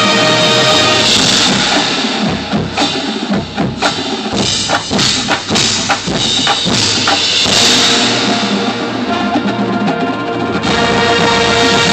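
High school marching band playing: held brass chords at the start, then a stretch of rapid drum hits from the percussion section in the middle, and held brass chords again near the end.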